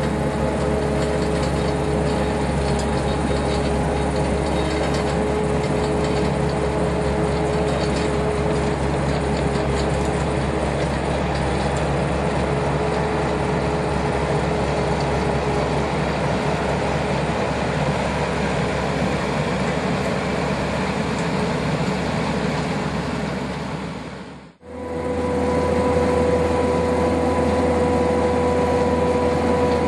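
Skid steer loader engine running steadily under load while working a Harley box rake. About three-quarters of the way through the sound drops away briefly, then comes back with a slightly different steady engine tone.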